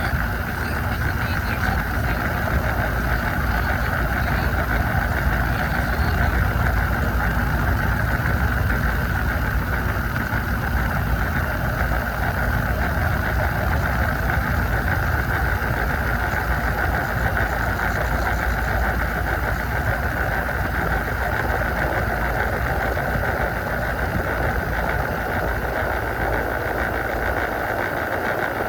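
Central air conditioner outdoor condensing unit running steadily, with the low hum of the compressor and the constant whir of the condenser fan.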